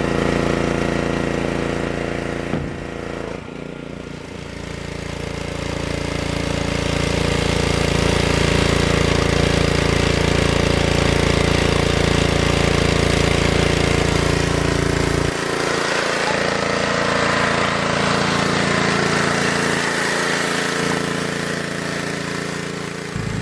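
A small engine-driven pressure washer running steadily under load. About fifteen seconds in, its deep low part drops away and the sound thins out.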